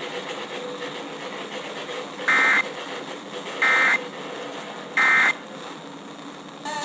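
Three short bursts of NOAA Weather Radio SAME end-of-message data tones, each a fraction of a second long and about 1.3 seconds apart, over faint radio static. They signal the end of the warning broadcast.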